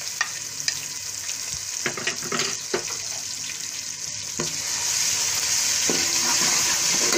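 Hot oil sizzling in a steel pot as cumin seeds, whole dried red chillies and freshly added garlic paste fry, a tempering step. Scattered crackles and taps sound over the hiss, which grows louder and steadier about four and a half seconds in as a spoon stirs the garlic into the oil.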